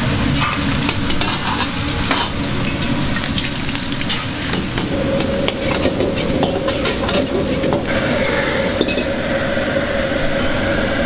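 Egg fried rice sizzling in a hot wok while a metal ladle stirs and tosses it, with repeated clicks and scrapes of metal on the wok. A steady hum joins about five seconds in.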